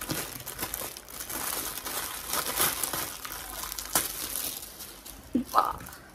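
Clear plastic packaging bag crinkling and crackling as it is handled and opened around a pair of pink slippers. A brief voice sound comes near the end.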